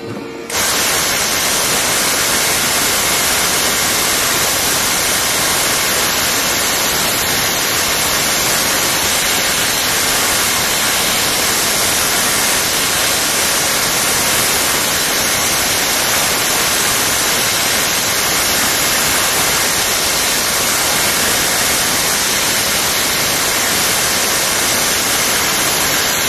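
Loud, steady static hiss spread evenly across all pitches, starting suddenly about half a second in, with no rhythm or motor tone in it: a noise burst on the recording rather than the shearing handpiece.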